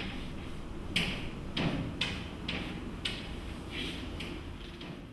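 Chalk writing on a blackboard: a series of short, scratchy taps and strokes about half a second apart.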